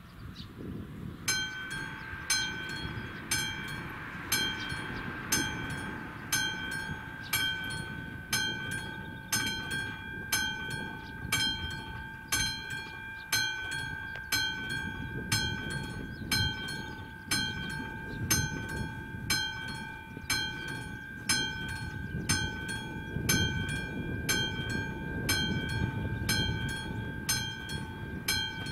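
Level-crossing warning bell (the classic mechanical bell of an AŽD 71 crossing) starting up about a second in and striking in a steady, regular rhythm with a ringing tone: the crossing is warning of an approaching train.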